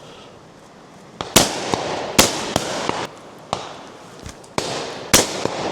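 Shotgun shots from several guns firing in quick, irregular succession, a dozen or so in all: a few close and loud, the rest fainter and further off, each with an echoing tail.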